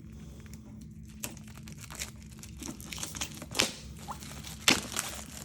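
Protective film being peeled and crinkled off a new RCA cable: irregular crackling and rustling, with sharper crinkles about three and a half seconds and nearly five seconds in.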